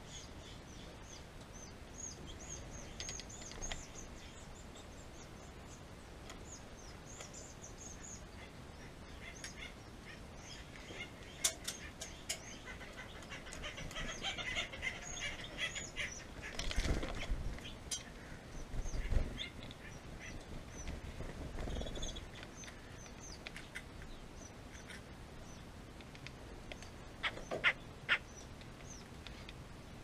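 Small birds calling with many short, high chirps, while a bird feeds at a tube seed feeder with scattered sharp clicks and knocks. A few low bumps and flutters come in the middle.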